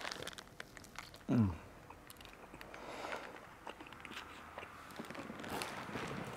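Close-up biting and chewing of a kota, a bread sandwich, heard as soft crunches and mouth clicks. About a second in, a short falling 'mm' hum of enjoyment comes from the eater.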